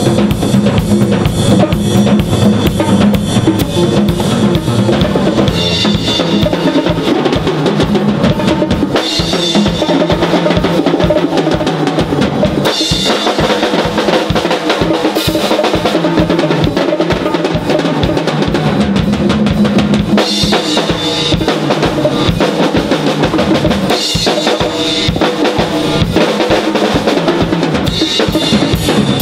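Live jazz drumming: a drum kit with kick, snare and cymbals together with hand percussion on congas and bongos, playing a busy, driving groove of rapid hits. The deep kick-drum low end thins out after about nine seconds while the hand drums and cymbals carry on.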